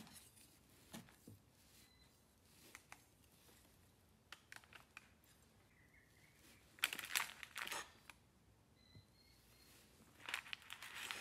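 Chef's knife cutting down through a soft sponge cake onto parchment paper: faint scattered clicks and crinkling of the paper. It is louder about seven seconds in and again near the end.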